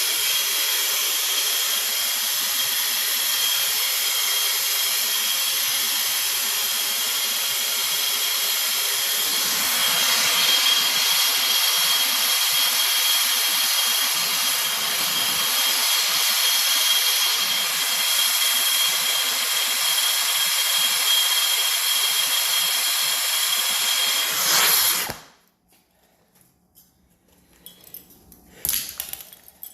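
Air-acetylene turbo torch, run off a B-tank, burning with a steady hiss and a thin high tone while it heats a copper pipe joint for soldering. It cuts off suddenly near the end, followed by a few faint clicks.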